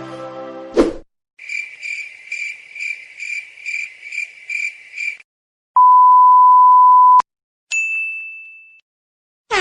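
A string of separate sound effects. A short thump comes first, then a high beeping tone pulsing about two and a half times a second for nearly four seconds. Then comes a steady censor bleep about a second and a half long, and last a short high ding that fades away.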